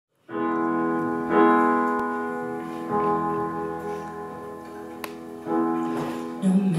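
Piano playing a slow introduction of sustained chords, a new chord struck about every one and a half seconds. A woman's singing voice comes in just before the end.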